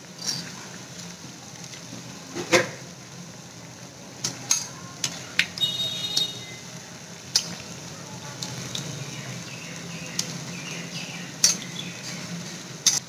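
Urad dal vadas sizzling steadily as they deep-fry in oil in an iron kadhai. Sharp clinks come now and then as a metal slotted spoon knocks against the pan while the puffed-up vadas are turned.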